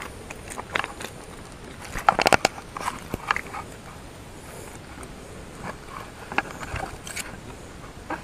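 Irregular crunches and clicks, thickest about two seconds in, from hauling in a handline by hand over river pebbles.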